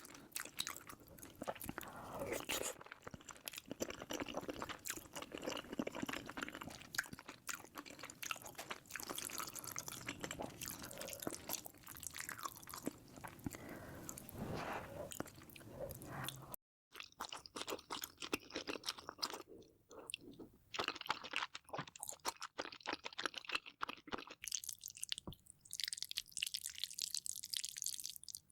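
Close-miked chewing and crunching of food, a dense run of crackly bites and chews, broken by a brief silent gap about two-thirds of the way through.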